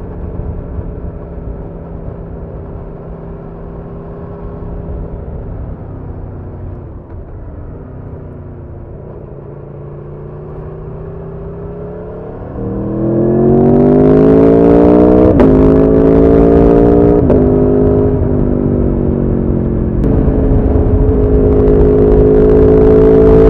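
Aprilia Tuono motorcycle engine under way, running steadily at moderate revs with a brief roll-off. About halfway through it revs up hard and louder, with two quick upshifts a couple of seconds apart, then holds high revs.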